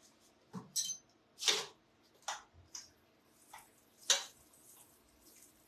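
Kitchen utensil tapping and clinking against a frying pan and bowls while doughnuts fry: about seven separate sharp clicks and knocks, the two loudest about a second and a half and about four seconds in.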